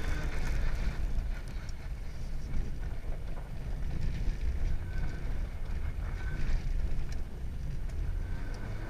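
Car engine running under throttle with tyre and wind noise, heard from inside the cabin as the car slides sideways on ice; a steady low rumble.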